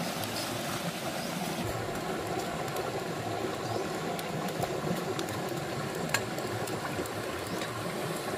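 River water running steadily over rocks, with a few faint sharp clicks scattered through it.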